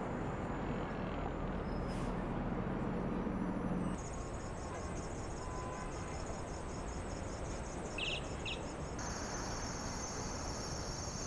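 City street traffic ambience: a steady hum of cars and taxis idling and passing. Over it, about four seconds in, comes a high chirring whine that turns steadier near the end, with two brief chirps about eight seconds in.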